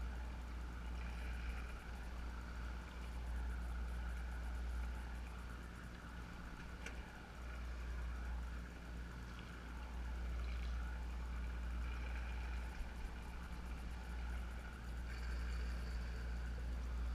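Steady low rumble of a sportfishing boat's engine running, with a continuous hum and no change in pitch.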